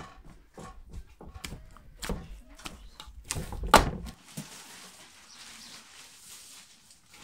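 Hand-kneaded bread dough in a large aluminium basin: knocks and thumps as it is pressed and folded, the loudest nearly four seconds in. After that comes a soft rustle as a cloth and plastic sheet are laid over the basin.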